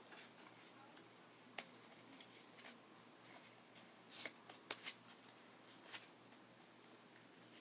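Faint, scattered flicks and clicks of Pokémon trading cards being handled and slid against one another, a few close together about four to five seconds in.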